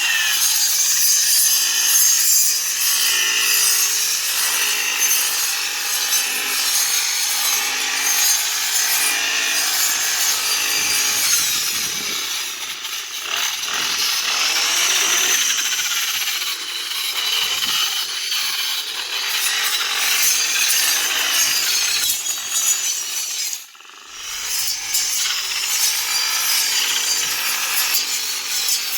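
Grass-cutting machine running and cutting green grass, a steady loud whirring, rasping cut with one brief dip about three-quarters of the way through.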